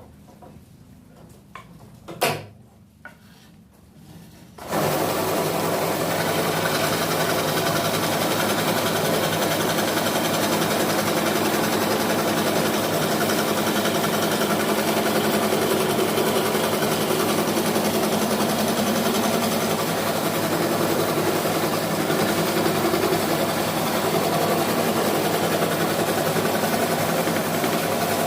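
Electric scroll saw starting about five seconds in and running steadily, its blade cutting the outer outline of a wooden name board. A brief knock is heard before the saw starts.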